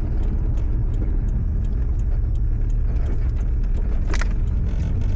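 Toyota Supra's engine and road noise heard inside the cabin while driving: a steady low drone, with a single sharp click about four seconds in.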